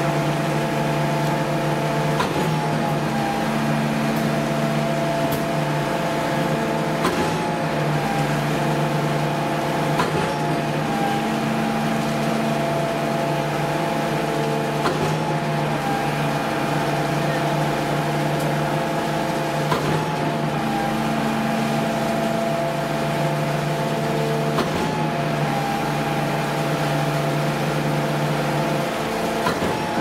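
SANY SY37 RZ5 truck-mounted concrete pump running under load: a steady engine and hydraulic drone, broken every few seconds by a short knock as the pumping cylinders change stroke.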